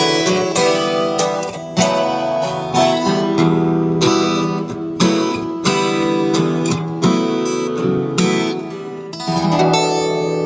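Two acoustic guitars playing an instrumental tune together, with strummed chords.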